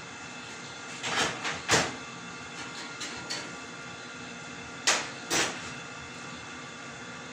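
Plastic-gloved hands handling a stuffed whole chicken in a glass baking dish: short rustling scrapes, three close together about a second in and two more about five seconds in, over a steady background hum.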